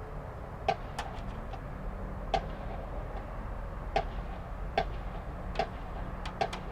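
Sharp clicks or taps at uneven intervals, about nine in all, some in quick pairs, over a low steady hum.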